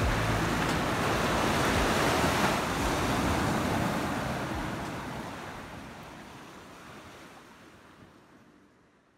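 Baltic Sea surf washing on the shore, with some wind. It is steady for the first few seconds, then fades out gradually to near silence by the end.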